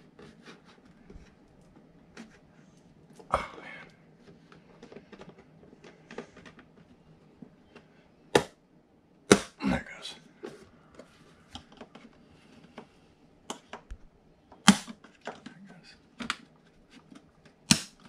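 Small screwdriver prying at a snap-on trim ring around an RV wall switch panel: scattered light ticks and scrapes, with a handful of sharper clicks as the ring is worked loose.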